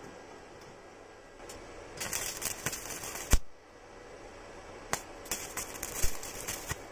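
Stick welder's arc crackling in two short bursts, about two seconds in and again about five seconds in, as tack welds are struck on a steel tube joint. A sharp click ends the first burst.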